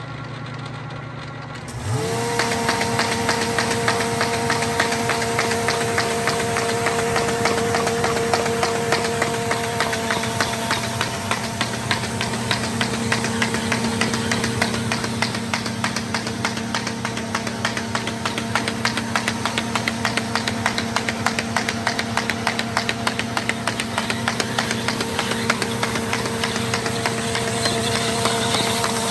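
Baum 714XLT air-feed paper folder starting up and running: about two seconds in its motor spins up with a rising whine that settles to a steady pitch, over a rapid, even ticking of sheets being fed and folded.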